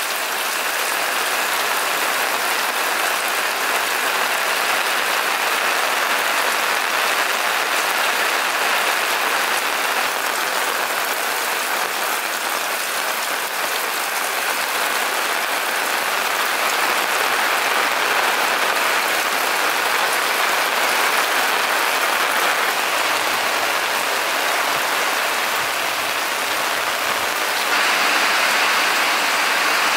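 Steady rain falling, an even hiss, a little louder near the end.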